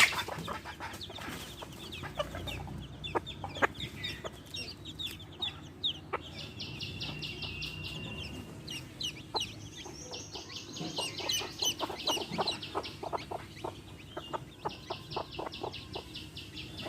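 Hen clucking while baby chicks peep, with many short, high, falling chirps and scattered short clicks throughout.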